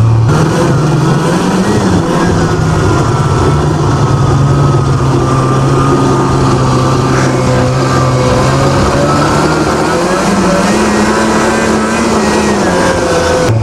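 A 2003 Ski-Doo Legend snowmobile's engine running under throttle as it rides across snow. Its pitch rises briefly about two seconds in, holds steady, then climbs again near the end before dropping back.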